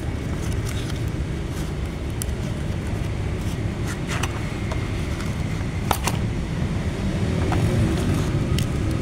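Steady low rumble in the background, with a few sharp clicks and taps, the clearest around four and six seconds in, from a cardboard lock-body carton being opened and a steel mortise lock body slid out onto cardboard.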